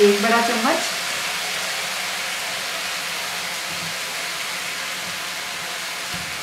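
Chopped vegetables sautéing in an oiled wok over a gas flame, with a steady sizzle after a spoonful of green chilli sauce has gone in.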